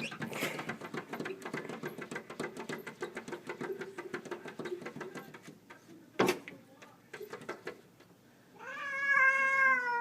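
A domestic cat gives one long meow near the end, falling slightly in pitch. Before it come several seconds of rapid, rough pulsing and a single sharp knock about six seconds in.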